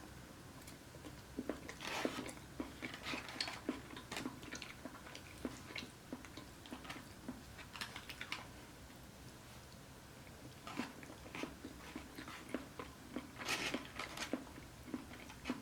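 Close-miked chewing and biting of crunchy food: irregular crisp crunches and mouth clicks, dying down for a couple of seconds a little past halfway before picking up again.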